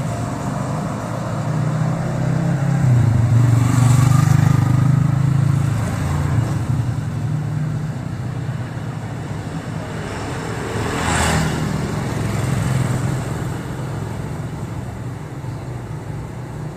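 A motor vehicle's engine runs steadily while travelling along a street, with a low hum that grows louder for a few seconds near the start. There is a brief rush of noise about eleven seconds in.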